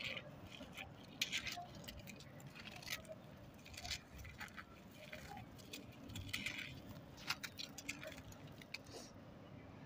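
Dry red dirt and sand being squeezed and crumbled by hand, clumps breaking apart and grains trickling through the fingers, with gritty crackles coming in irregular bursts.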